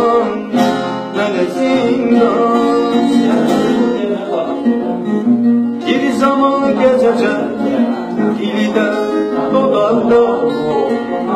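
Acoustic guitar strummed and picked, playing an instrumental passage of a song with a steady rhythm.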